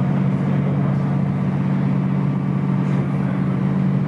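Steady low drone of the Queen Emeraldas water bus's engines, heard inside its passenger cabin.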